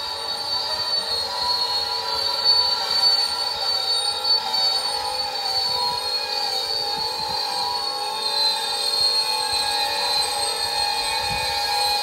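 Loaded coal hopper cars rolling slowly by with a steady, slightly wavering high-pitched squeal from the wheels and brakes as the train slows to stop.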